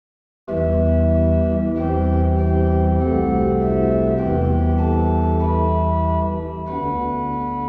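Organ playing slow, sustained chords, starting about half a second in, the chords changing every second or so and growing a little softer near the end.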